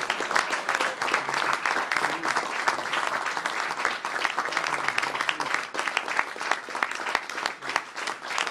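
A roomful of people applauding, dense steady clapping.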